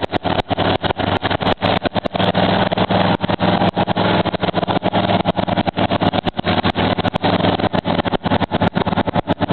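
Old Ford pickup's engine held at steady high revs while the truck struggles through a deep mud pit. The sound keeps breaking up with many brief dropouts.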